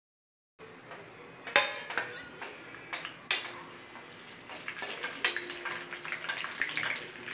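A long metal ladle stirring in a steel kadai, clinking and scraping against the pan, with three sharp clanks. Under it is a steady sizzle of whole spices frying in hot ghee and oil.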